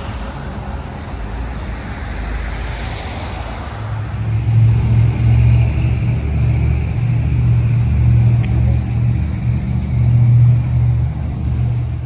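Street traffic noise, with a vehicle going by in the first few seconds. From about four seconds in, a vehicle engine's low steady hum takes over, louder than the traffic before it.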